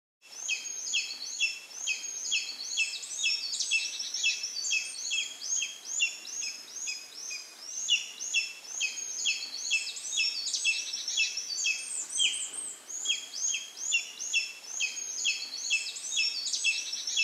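Birds calling: a dense, unbroken run of short, high, downward-sliding notes, about three or four a second, overlapping at several pitches.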